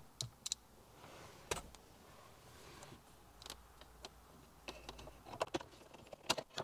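Faint, separate clicks and light taps of a Torx screwdriver and plastic dashboard trim being handled while the head unit's retaining screws are driven back in, with more clicks near the end.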